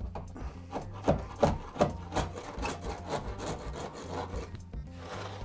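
A hand tool scraping back and forth on the layout's track work in quick strokes, about three a second.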